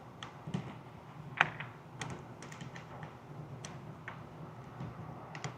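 Cartridges being pressed one by one into a pistol magazine: a string of irregular small metallic clicks, the sharpest about a second and a half in, over a faint steady low hum.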